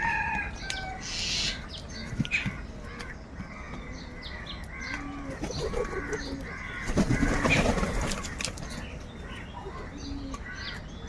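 A flock of crows cawing over one another, many short calls throughout, with a loud flurry of wing flaps about seven seconds in.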